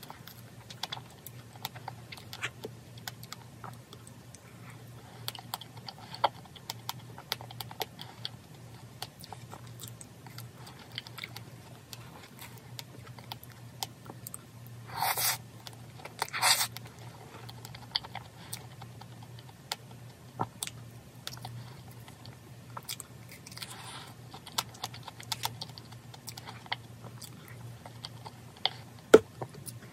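Close-up eating sounds of a strawberry cream fraisier cake: soft chewing with many small scattered clicks and taps. Two short, louder noises come about halfway through.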